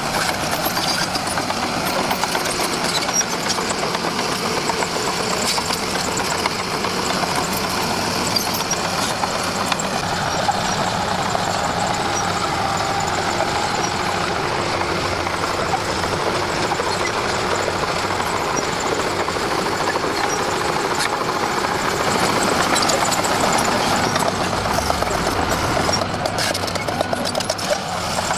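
Komatsu D41P crawler dozer's diesel engine running steadily while the dozer works, with its pitch rising and falling a little.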